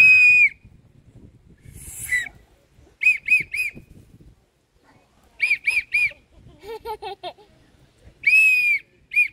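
Small plastic toy whistle blown by a toddler in short, high toots. There is a long toot at the start, two quick runs of three toots in the middle, and another long toot near the end.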